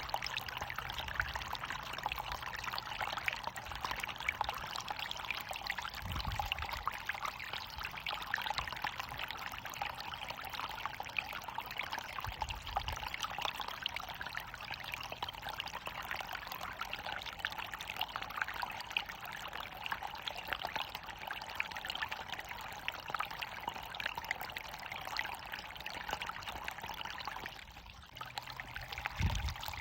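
Running water pouring steadily, an even rushing splash with a short dip in level near the end.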